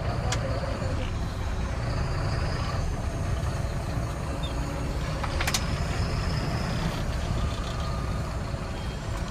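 Truck engine running steadily, with two brief sharp clicks.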